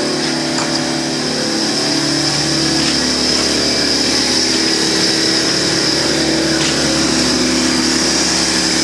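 Air compressor running steadily, its motor and pump filling the tank with air.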